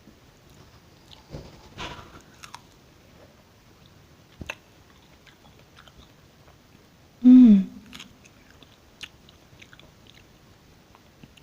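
Close-miked chewing of juicy strawberries with yogurt: soft wet bites and scattered mouth clicks. About seven seconds in comes a short falling hum that is louder than the chewing.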